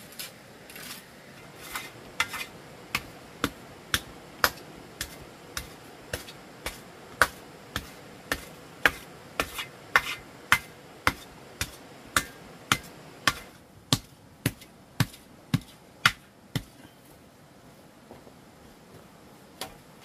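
A hand tool striking repeatedly, hammering or chopping, at about two blows a second, stopping near the end.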